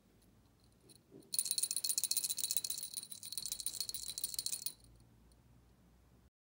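Small brass jingle bell shaken in the fingers, jingling rapidly and brightly for about three and a half seconds, starting a little over a second in.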